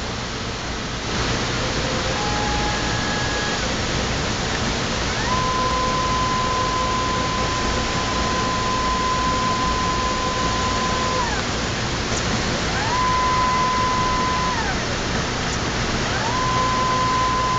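ACE K.I.S.S. 102 selective soldering machine running a demo program. Its stepper motors drive the lead-screw axes, and each move makes a whine that rises in pitch, holds steady, then falls away. There are four moves, the longest about six seconds, over a steady rushing noise.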